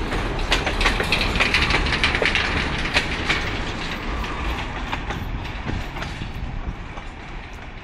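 Freight train wagons rolling past, their steel wheels clicking over the rail joints in a clickety-clack over a steady rumble. The clicks thin out and the sound fades in the second half as the last wagons pass and the train moves away.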